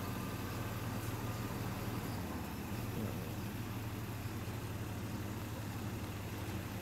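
Minibus engine idling with a steady, low, even hum.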